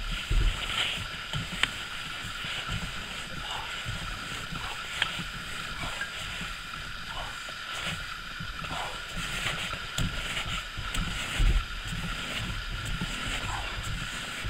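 Rustling, rubbing and dull knocks as a Citroen Xsara's steering wheel is turned by hand from side to side, with no engine running.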